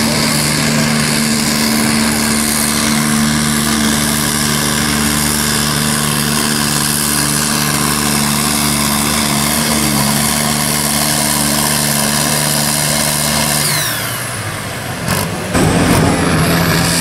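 Pulling tractor's diesel engine running flat out at steady high revs under heavy load. About fourteen seconds in the engine drops off and a high whine falls in pitch; near the end there is a sharp break and another tractor's engine running.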